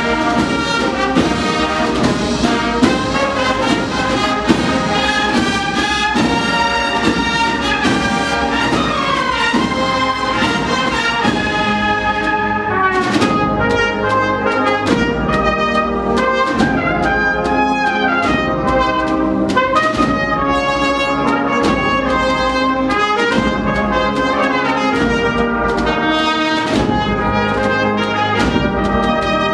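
Spanish Holy Week agrupación musical, a band of cornets, trumpets, trombones and drums, playing a processional march.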